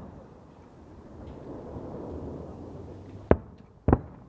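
Fireworks bangs: one sharp bang about three seconds in, then a quick double bang half a second later, over a low background noise.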